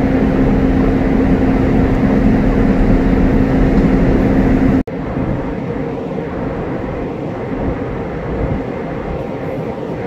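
CAF metro train running, a loud steady rumble with a constant electric hum over it. About halfway through the sound breaks off abruptly and resumes as slightly quieter train noise, with only a higher steady tone left.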